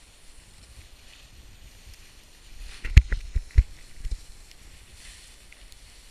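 A snowboard sliding down a slope with a low hiss on the snow, broken about three seconds in by a quick run of five or six sharp knocks and thumps as the board and the pole-held camera jolt over rough snow.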